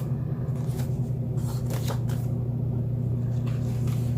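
Paper card stock and foiled cards being handled and shuffled, a few brief rustles in the first half, over a steady low hum.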